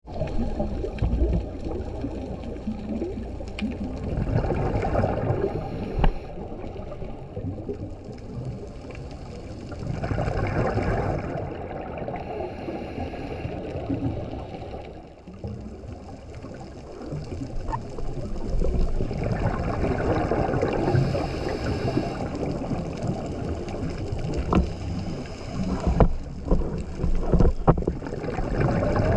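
Scuba diver's regulator breathing heard underwater: exhaled bubbles gurgle for a couple of seconds at a time, three or four times, with quieter inhalations between. A few sharp clicks sound, most near the end.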